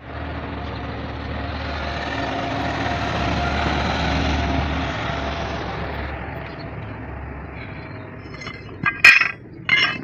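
A motor vehicle engine running, growing louder and then fading away over the first six seconds, followed near the end by two sharp metallic clinks.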